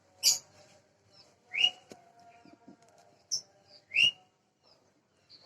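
Small birds chirping: four loud, sharp calls about a second apart, over fainter high twittering.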